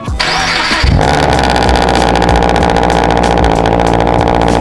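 Subaru BRZ's FA20 flat-four engine starting: a brief burst of cranking with a rising whine in the first second, then the engine catches and settles into a loud, steady idle.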